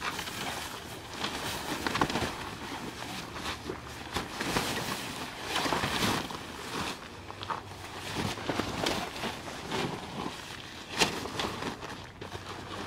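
Fabric of an Ameristep Doghouse pop-up hunting blind rustling and flapping as it is unfolded and springs open into shape, with a couple of sharper snaps about 2 seconds in and near the end.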